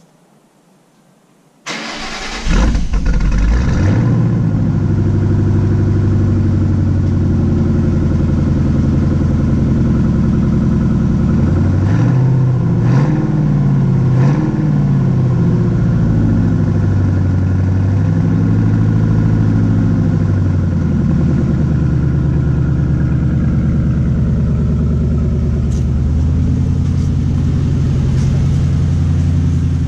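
2008 Ford Mustang GT's 4.6 L three-valve V8, breathing through shorty headers and a Pypes Pype-Bomb axle-back exhaust, cranked by the starter and firing about two seconds in with a loud flare of revs. It then runs at a fast, loud idle with a few brief dips and rises in pitch about halfway through, and the idle drops slightly about two-thirds of the way in.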